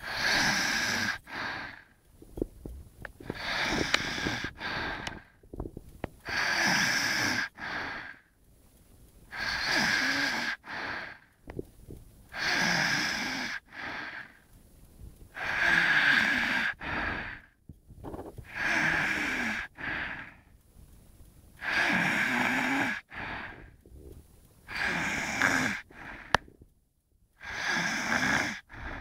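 Snoring: about ten breaths, one every three seconds or so, each a hiss carrying a steady whistle-like note, with quiet pauses in between.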